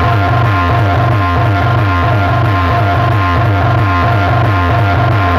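Loud music played over a DJ sound system, with a heavy bass line repeating at an even beat and steady high tones above it.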